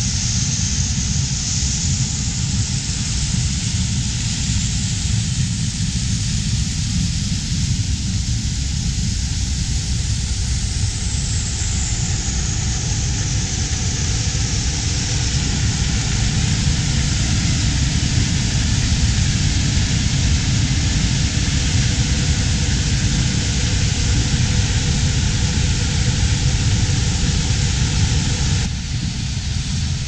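Combine and tractor running steadily in the field: an even low engine rumble with a hiss over it. The sound shifts abruptly about a second before the end.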